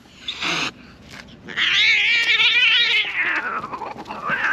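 Cats caterwauling in a territorial standoff. A short yowl comes first, then a long, wavering yowl starting about a second and a half in, and another short yowl near the end.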